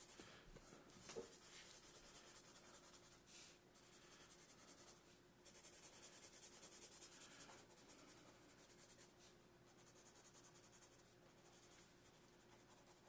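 Felt-tip marker tip brushing across paper in quick, light shading strokes: a faint scratchy hiss with a couple of short pauses.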